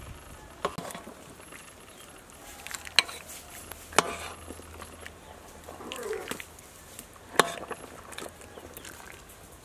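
A few sharp clinks of a metal ladle against a metal pot and a ceramic bowl while braised fish is served out. A chicken clucks briefly in the background about six seconds in.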